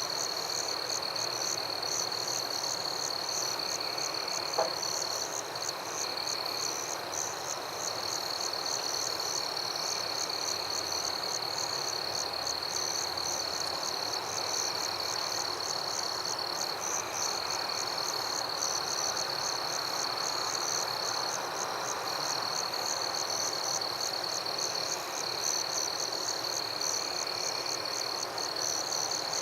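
Night chorus of frogs and insects calling steadily: a continuous high trill with rapid pulsing calls above it, and a lower call that recurs every couple of seconds.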